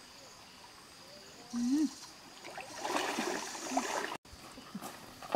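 Shallow stream water trickling, with splashing as someone wades and works in the water, loudest about three to four seconds in. A brief low vocal sound rises and falls about one and a half seconds in.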